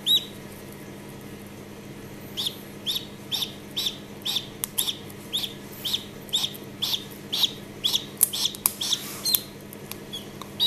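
Khaki Campbell duckling peeping from inside its partly opened egg: short high peeps, one at the start, then about two a second after a short pause. There are a few sharp clicks near the end as the eggshell is picked at by hand.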